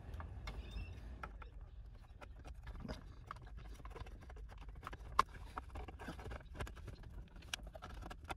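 Light plastic clicks and taps as a centre-console trim panel and lid are handled and slotted into place, with one sharper click about five seconds in.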